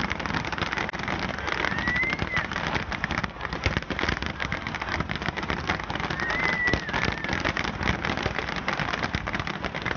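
Dense crackling of many fireworks bursting together, a continuous rain-like crackle. Two short whistles come through it, about two seconds in and again around six seconds in.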